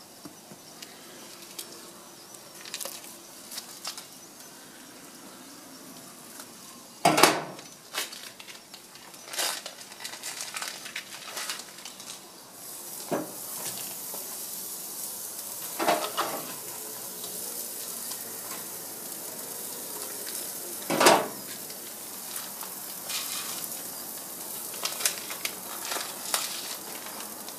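Raw beef burger patty starting to sizzle on a hot grill grate: a steady hiss sets in about halfway through and holds. Several sharp clatters and knocks of handling come before and during it.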